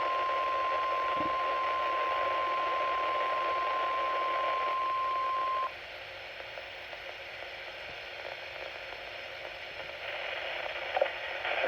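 NOAA Weather Radio warning alarm tone, the 1050 Hz alert of a required weekly test, as a steady single tone over radio static. It cuts off suddenly about halfway through, leaving only the receiver's hiss.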